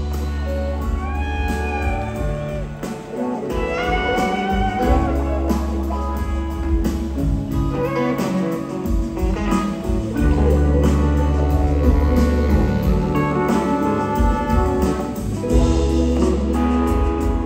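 Live blues-rock band playing: electric guitars, keyboards, bass and drums in a slow groove, with sustained, bending lead lines over steady bass notes.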